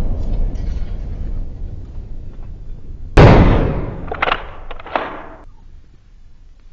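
Outro sound effects: a low rumble fading out, then a sudden loud bang about three seconds in that dies away over a second, followed by two shorter sharp cracks.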